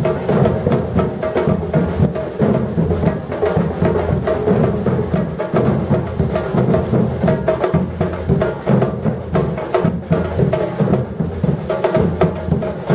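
Batucada percussion ensemble drumming a dense, steady groove without a break: deep bass drums under sharp, quick strokes from snare and higher drums.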